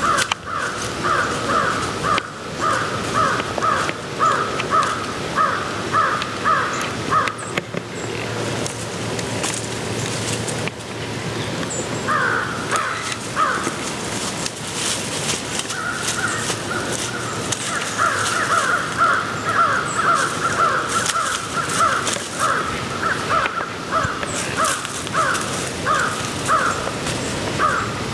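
Crows cawing over and over, about two harsh caws a second, in long runs that stop about eight seconds in and pick up again a few seconds later.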